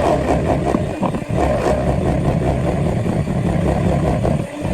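Electric mixer running steadily, beating cake batter, with a brief dip about a second in.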